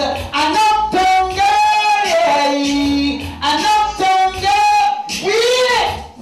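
A man singing a reggae vocal live through a microphone and PA, holding long, high notes in phrases of about a second each, over faint low backing music.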